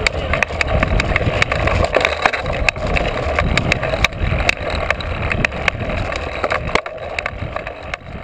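Mountain bike riding fast along a dirt trail: wind buffeting the microphone, tyres rolling over the ground, and frequent sharp clicks and rattles from the bike jolting over bumps. It quietens about seven seconds in.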